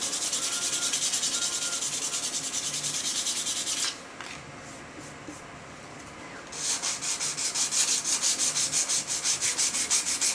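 Sandpaper rubbed by hand over the edges of an oak coaster, quick back-and-forth strokes about four a second. It comes in two runs with a pause of a couple of seconds in the middle. This is the final smoothing of the edges that ends the shaping.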